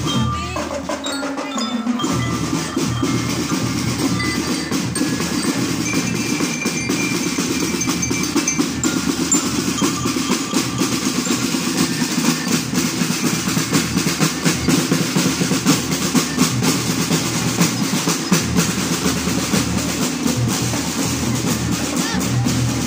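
A marching drum and lyre band playing: snare and bass drums keep a fast, steady beat while bell lyres ring out short melodic notes over it.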